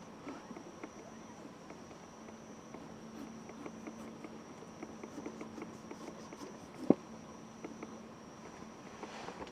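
Insects trilling steadily, with a faint low hum underneath, scattered small crackles and clicks, and one sharp snap about seven seconds in.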